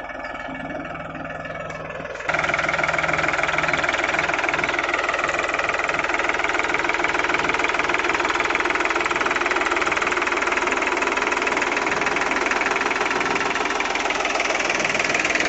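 Powertrac Euro 42 Plus tractor's three-cylinder diesel engine running at low revs under load in first low gear, pulling a potato planter. About two seconds in it becomes louder and closer, a dense, even diesel clatter.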